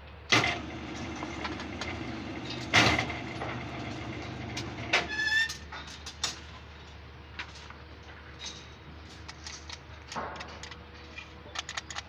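Electric rebar bending machine bending a bundle of steel bars into stirrups: loud metallic clanks about a third of a second and three seconds in, with the machine's motor and gearbox humming for about five seconds before it stops. Lighter clinks and knocks of steel bars being handled follow.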